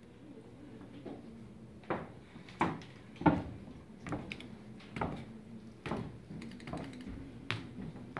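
Slow, measured footsteps of shoes on a stage floor, one step a little less than every second, starting about a second in.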